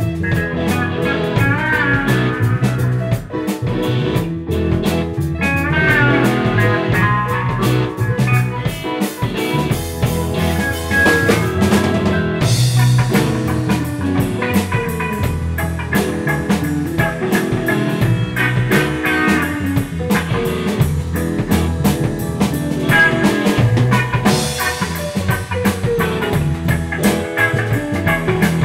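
Live instrumental band jam: electric guitar playing bending lead lines over bass guitar and a drum kit, with the cymbals coming in brighter about twelve seconds in.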